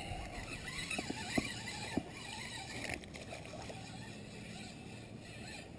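Fishing reel cranking in a hooked largemouth bass, with a few light clicks in the first two seconds over faint wind and water noise.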